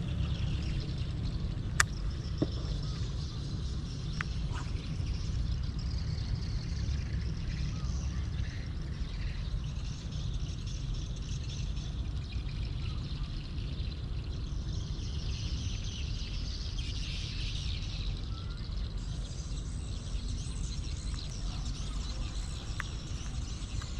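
Open-air ambience: a steady low rumble of wind on the microphone, with faint bird chirps and a few sharp clicks, one about two seconds in and one near the end.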